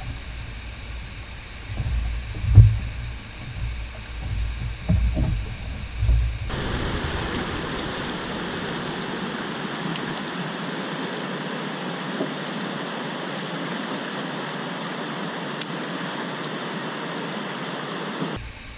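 Rushing river water in the turbulent tailwater below a dam spillway. It starts as a low rumble with a few thumps, then about six seconds in cuts abruptly to a steady hiss of fast, choppy current.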